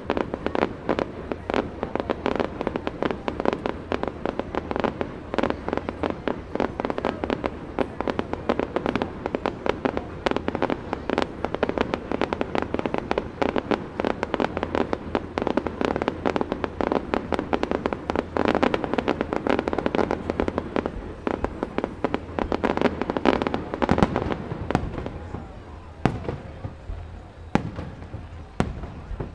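Aerial fireworks going off in a dense, rapid barrage of bursts and crackles, thinning in the last few seconds to a few separate loud bangs.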